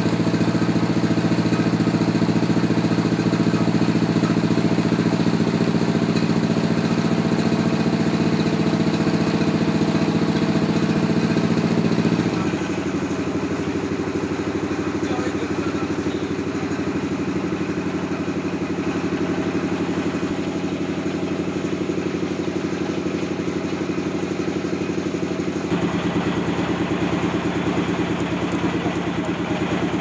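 The sawmill's engine running steadily, its note dropping a little about twelve seconds in and rising slightly again near the end.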